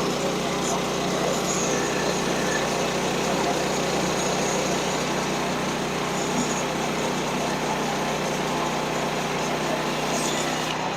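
Portable band sawmill's small gasoline engine running steadily at speed, its level falling away right at the end.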